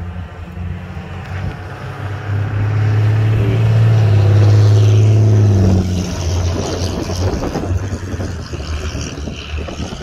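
A road vehicle with a deep engine hum approaches and passes, loudest about four to five seconds in, its pitch dropping as it goes by.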